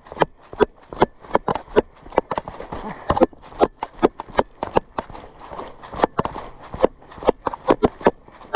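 Fast footsteps on the forest floor, a quick hurried stride at about three steps a second.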